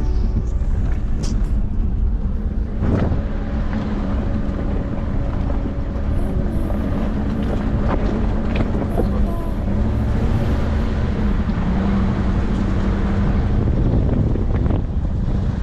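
Off-road vehicle's engine running steadily as it drives over a rough dirt track, with a few sharp knocks, and wind on the microphone.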